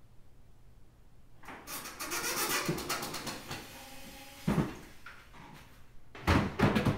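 Workshop floor noise: scraping and rubbing, a single thump about four and a half seconds in, then a quick, dense run of knocks near the end.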